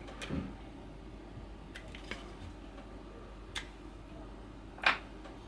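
Scattered faint clicks and light taps from a Glock pistol's frame parts being handled and worked loose during disassembly, with one sharper click near the end.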